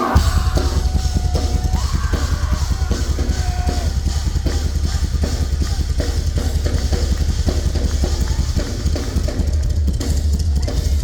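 Rock drum kit playing a drum solo: a very fast, steady double bass drum run with snare, tom and cymbal strikes over it.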